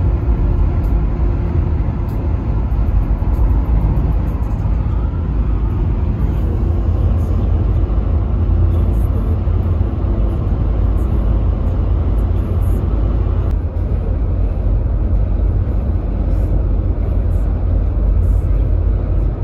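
Steady road and tyre rumble with engine hum inside the cabin of a car cruising at highway speed.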